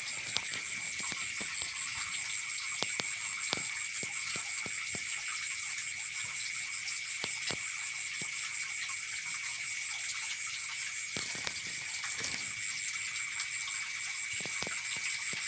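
Steady chorus of night insects: a continuous high trill with a higher, pulsing one above it, with scattered light clicks and rustles.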